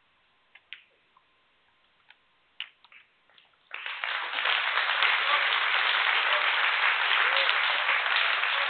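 A few sharp clicks of snooker balls as the cue strikes the cue ball and the black is potted. About four seconds in, audience applause breaks out for the potted black and keeps up loudly.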